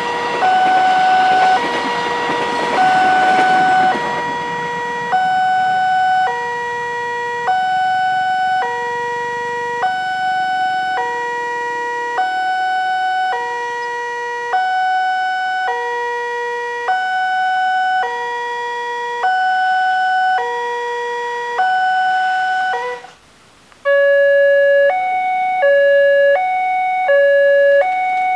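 Electronic railway level-crossing alarm from the signal's loudspeaker, alternating between a lower and a higher chime about every three-quarters of a second, while a passing electric train rumbles under it for the first few seconds. About 23 seconds in it cuts off, and a second crossing's two-tone alarm starts, higher and quicker.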